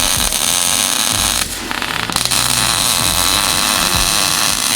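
MIG welding arc crackling and hissing steadily as a bead is laid. It briefly drops out and sputters about a second and a half in, then carries on.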